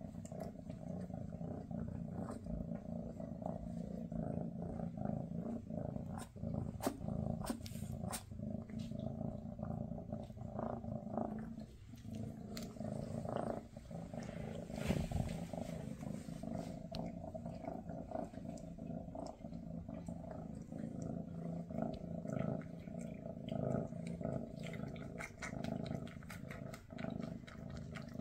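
Maine Coon cats purring close up, a steady low rumble throughout. Over it come many short soft clicks and rustles of the mother cat licking and grooming her kitten's fur.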